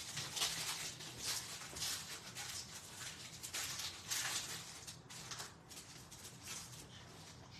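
Crinkling and rustling of thin plastic in irregular bursts as a trading card is handled and slid into a clear protective sleeve.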